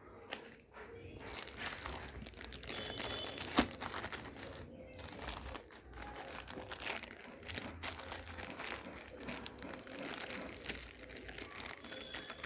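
Plastic packaging crinkling and rustling as the items of a tubeless tyre puncture repair kit are handled, with a sharper click about three and a half seconds in.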